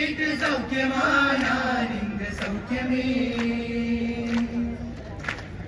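A single voice singing slow, long-held notes without words, gliding down and then holding one steady note, with sharp taps about once a second in the second half.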